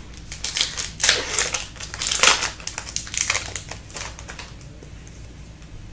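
Hockey card pack wrappers crinkling and cards being handled, in a run of short rustling bursts that die down to a faint rustle near the end.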